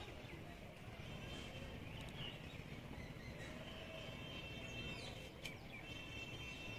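Faint outdoor background hum with small birds chirping now and then, in short high calls and a few held whistling notes.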